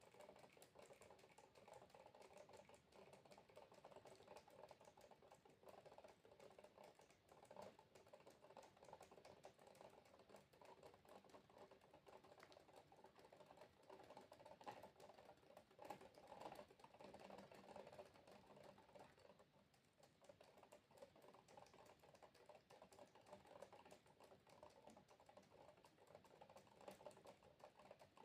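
Faint, continuous patter of water droplets: many small taps close together, with no pauses.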